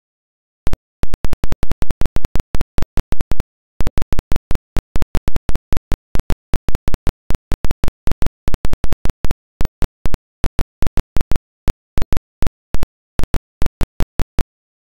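Loud, irregular clicks and pops, several a second with uneven gaps, over an otherwise dead-silent track, like crackle on a silent home-movie transfer.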